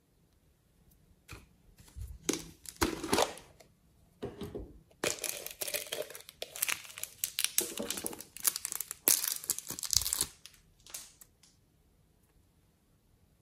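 Thin clear plastic bottle crinkling and crackling in irregular bursts as hands grip and squeeze it.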